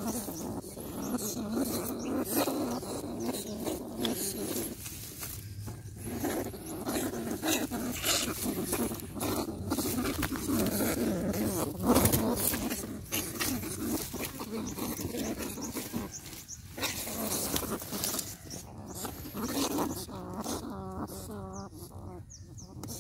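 Grass and dry stalks rustling and a wire-mesh cage rat trap rattling as it is handled, with animal noises mixed in.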